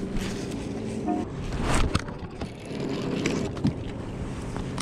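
Handling noise aboard a kayak: a few sharp knocks and clicks and the rustle of a jacket sleeve rubbing against the microphone, over a faint low hum that fades after about a second.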